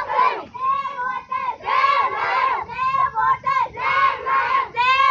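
A group of girls chanting slogans together in short, rhythmic shouted phrases.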